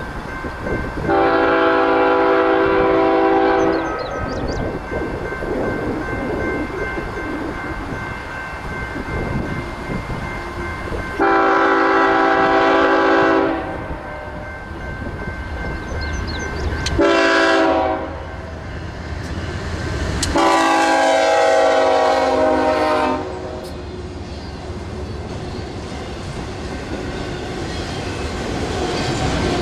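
Air horn of a BNSF freight's lead GE ES44DC locomotive sounding the grade-crossing signal: two long blasts, one short and one long, each a chord of several notes. Between the blasts the train's rumble goes on, and near the end it grows louder as autorack cars pass close with wheel clatter on the rails.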